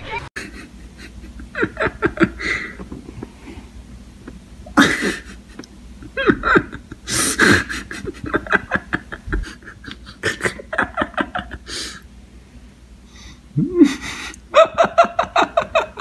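A person laughing in repeated bursts of breathy, gasping laughter.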